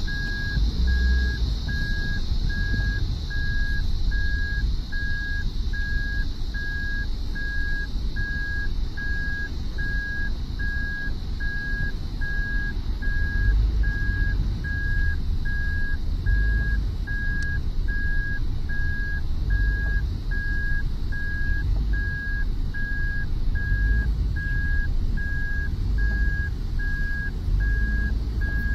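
A car's in-cabin reverse-gear warning beeping, short high beeps on one pitch repeating evenly, over the low rumble of the engine and road noise as the car backs up.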